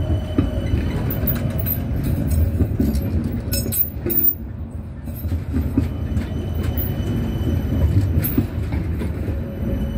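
Tram passing close by at low speed: a steady low rumble of steel wheels on the rails, with scattered clicks and rattles from the wheels and body.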